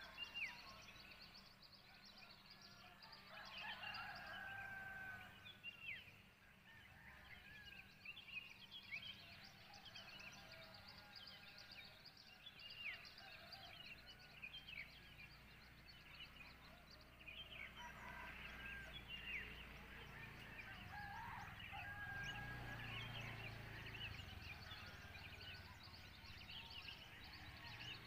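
Faint birdsong: many short, sharp chirps and whistles from several birds, with a few longer held calls about four seconds in and again around twenty seconds.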